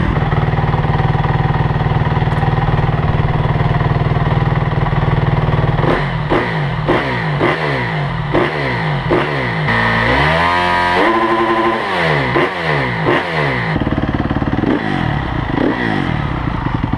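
Honda CRF250R dirt bike's single-cylinder four-stroke engine warming up. It idles steadily for about six seconds, then is blipped with a string of short throttle revs, with one longer rev held for a couple of seconds past the middle and more blips near the end.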